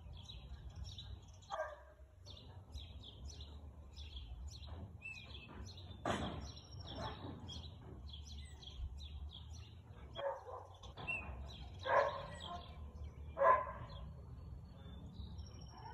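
A husky barking several times, the barks a few seconds apart, the loudest near the end, over small birds chirping continuously.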